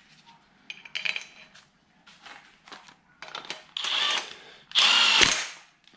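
Clutch bolts being tightened: light metallic clinks of tools and hardware, then two short bursts of a power tool, the second louder and ending in a knock.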